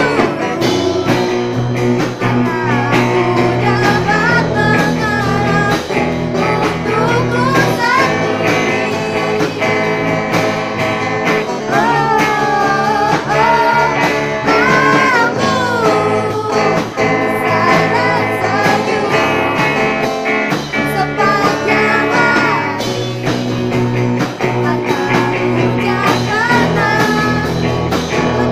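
Live amateur rock band playing: girls' voices singing a melody over electric guitars, bass guitar and drums.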